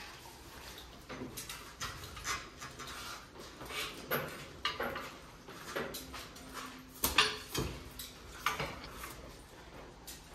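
Scattered clinks and knocks of buggy shafts and metal harness fittings as a horse is hitched to an Amish buggy, the sharpest knock about seven seconds in.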